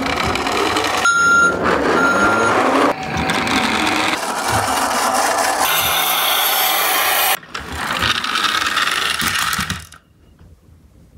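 Toy garbage trucks playing their built-in electronic sound effects: a recorded truck noise with two short reversing beeps in the first few seconds, then other recorded truck sounds, cutting off about ten seconds in.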